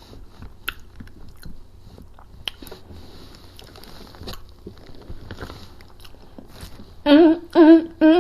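Close-up chewing and lip-smacking of a person eating, with small wet clicks and crunches. Near the end come three short, loud sounds from her voice.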